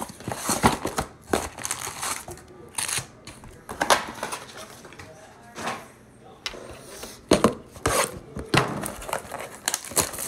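Hands handling a cardboard trading-card box and its card packs: an irregular string of taps, knocks and crinkles.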